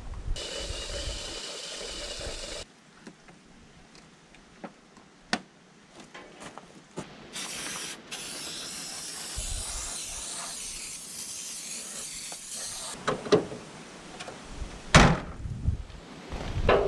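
Fluid being poured into a truck's under-cab reservoirs while topping them up, heard as two stretches of steady rushing liquid, with scattered clicks in between and a loud knock near the end.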